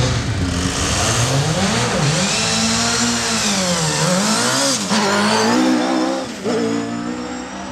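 Single-seater racing car launching from the start line and accelerating hard away. The engine pitch climbs and drops back several times as it changes up through the gears, fading as the car goes off up the hill near the end.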